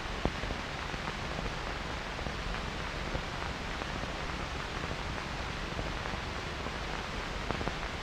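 Steady hiss and faint crackle of an old film soundtrack, with a few soft clicks.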